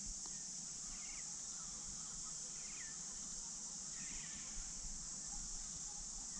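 Steady high-pitched drone of insects from the riverside bush, with a few faint short bird chirps over it.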